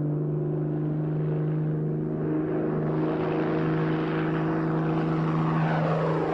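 Single-engine propeller plane taking off: a steady piston-engine drone with a rushing noise that grows from about two seconds in.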